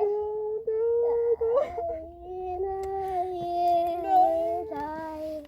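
A high-pitched voice wailing and crying in long, drawn-out wavering cries that cut off suddenly near the end.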